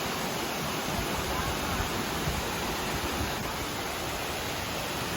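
Steady rushing of a small waterfall, an even wash of falling water with no breaks.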